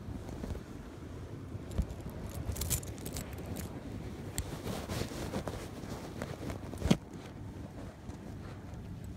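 Muffled handling noise over a steady low wind rumble, with a run of light clicks about two and a half to three and a half seconds in, and two sharp knocks, one about two seconds in and a louder one about seven seconds in.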